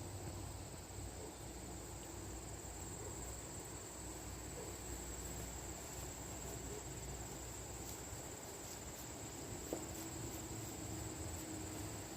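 Steady high-pitched trilling of crickets, faint, over a low wind rumble.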